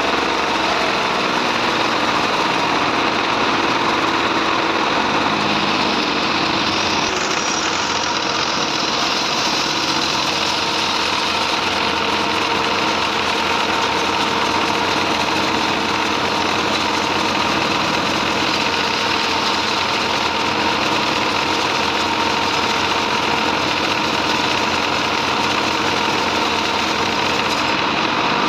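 Bandsaw mill running steadily, a loud continuous machine drone with a steady high hum running through it.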